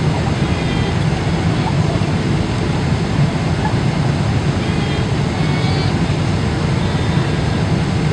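Steady low roar of a Boeing 777's cabin in flight on approach: engine and airflow noise, even throughout. A few faint short high-pitched sounds sit on top, from a baby fussing aboard.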